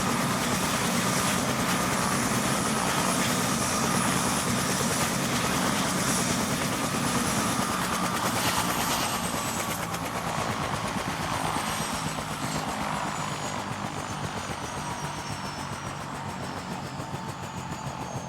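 Ambulance helicopter's turbine engines and rotor running steadily, then spooling down during shutdown. From about eight seconds in, the high turbine whine glides steadily lower in pitch and the overall sound slowly fades.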